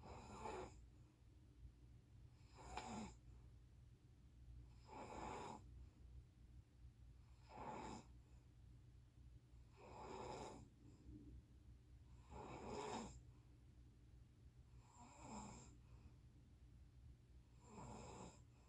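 A sleeping person snoring faintly and regularly, one snore about every two and a half seconds.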